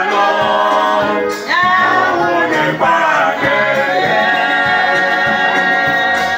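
Church choir singing in harmony, holding long notes in phrases with short breaks between them.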